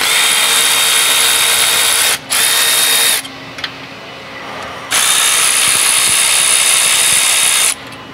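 Power ratchet with an E12 Torx socket spinning out exhaust bracket bolts, running in three goes of about two seconds, one second and three seconds, with a steady high whine over a hiss.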